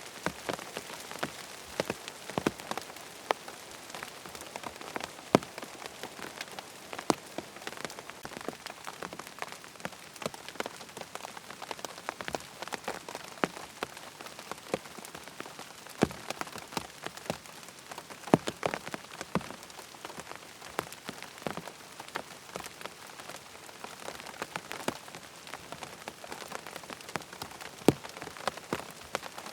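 Rain falling on a tent: a steady hiss of rain with many individual drops striking sharply and irregularly on the fabric.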